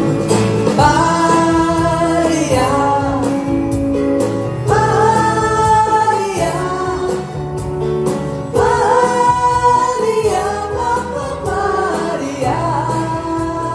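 Live pop ballad: a female voice sings long held notes with vibrato, in phrases about four seconds apart, over band accompaniment.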